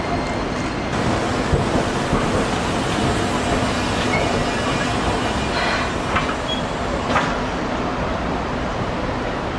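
Hiroshima Electric Railway streetcar no. 813 rolling slowly in over the track and points, steel wheels on rail. There are a few brief wheel squeals around the middle and a sharp clank about seven seconds in.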